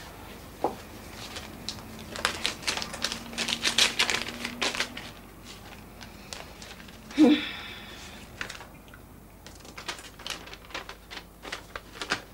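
Paper rustling and tearing as an envelope is slit open with a butter knife and the letter is pulled out and unfolded: runs of short crisp crackles, with one louder rasp about seven seconds in.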